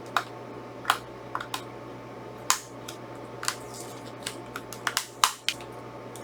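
Plastic Blu-ray case being handled and opened: a dozen or so sharp plastic clicks and snaps at irregular intervals, with a quick cluster about five seconds in.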